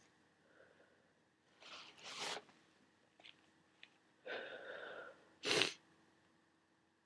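A person with a head cold sneezing and sniffing: a sharp outburst about two seconds in, a couple of short sniffs, then a drawn-in breath leading to the loudest sharp burst about five and a half seconds in.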